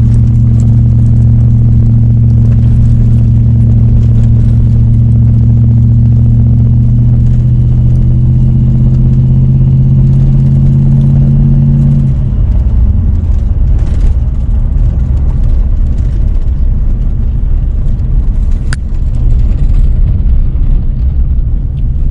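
Toyota vehicle driving, with a loud, steady low engine hum that rises slightly in pitch about seven seconds in. About twelve seconds in the hum stops and an uneven low rumble carries on.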